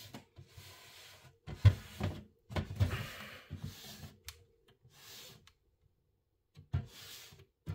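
Plastic panels of a model shipping-container display case being handled and pressed together: a series of short hollow knocks and clicks, the loudest about one and a half seconds in, with soft rubbing of plastic between them.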